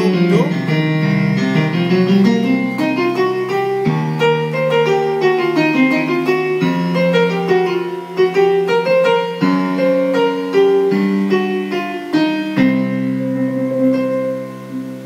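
Electronic keyboard played with a piano sound, an improvised freestyle: held low notes under a melody that moves up and down.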